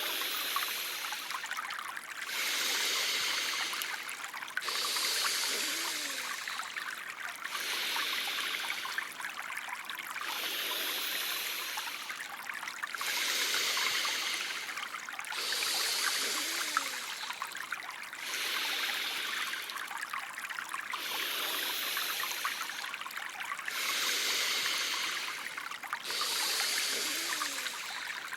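Steady trickling stream water. Over it, a soft high hiss swells and fades about every two and a half seconds.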